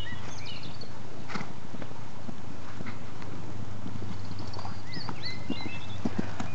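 A Connemara pony's hooves clip-clopping as it is ridden, the beats growing clearer and louder near the end. A few short high chirps come over a steady low hum.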